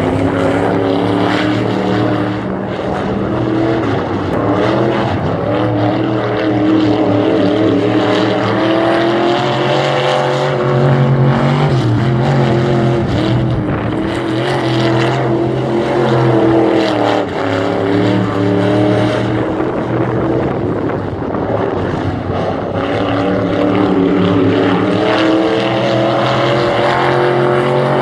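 Dirt late model race car's V8 engine running hot laps around a dirt oval, its note rising and falling again and again as the car accelerates and lifts through each lap.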